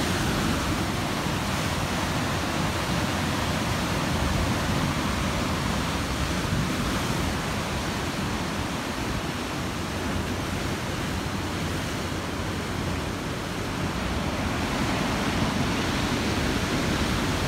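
Rough ocean surf breaking and churning over a rocky shore: a steady rush of water with no separate crashes standing out.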